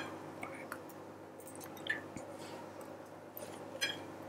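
Quiet handling sounds of coffee-soaked savoiardi (ladyfingers) being laid onto mascarpone cream: a faint soft squish or drip about two seconds in and a short cluster of light clicks near the end.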